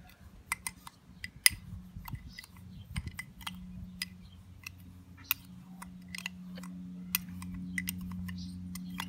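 Metal spoon stirring a dry granular mix of sugar and potassium nitrate in a glass tumbler, with irregular sharp clicks of the spoon against the glass. A low steady hum comes up about halfway through.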